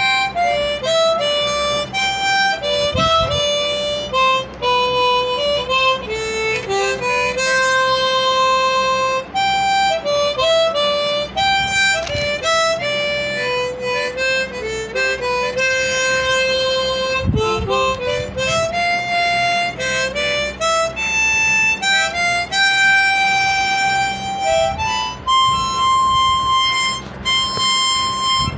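Instrumental music: a slow melody of held notes moving step by step, over a soft low accompaniment.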